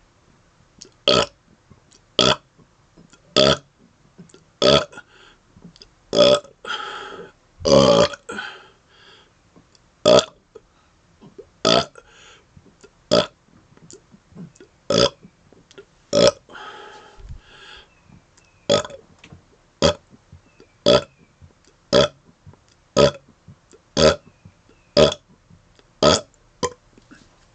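A man burping deliberately and without rest: a string of short, loud burps about one a second, with a few longer, drawn-out ones about six to eight seconds in.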